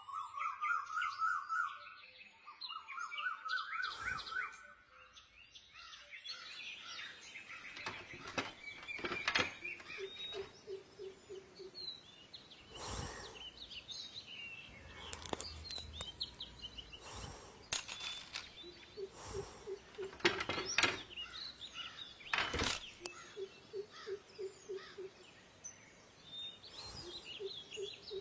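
Birds chirping and calling: a fast trilling call twice in the first few seconds, then a low pulsing call repeated several times. A few sharp knocks sound in between.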